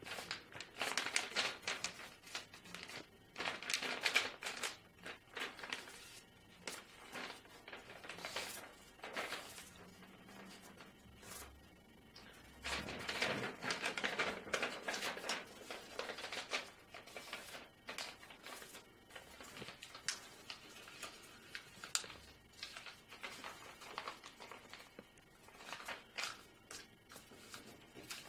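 A sheet of origami paper rustling and crackling in the hands in irregular bursts as it is folded, opened out and creased, with lighter scattered clicks later as the paper is pressed flat on the table.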